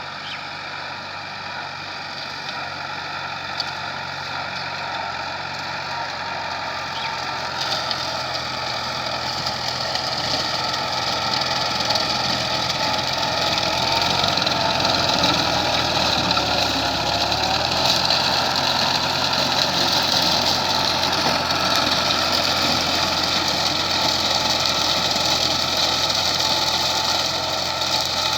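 Valmet 85id tractor's diesel engine running steadily while driving a rotary mower, growing louder through the first half and then holding a loud, even note.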